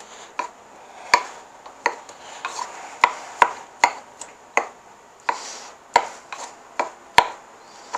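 Pestle pounding and grinding wet nixtamalized corn kernels in a metal mortar: irregular sharp knocks of the pestle about twice a second, with soft scraping and mashing between them.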